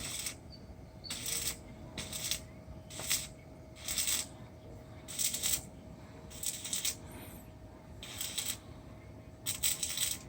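Electric arc welding on steel pipe, crackling in short bursts of about half a second each, roughly nine of them, like a run of tack welds. A faint steady hum sits underneath.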